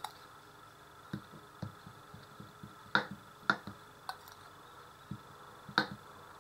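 A metal spoon clinking a few times against a small ceramic bowl as seasoning is scooped, with soft taps as the spoon spreads it over a raw chicken breast fillet on a wooden cutting board. The sharpest clink comes near the end.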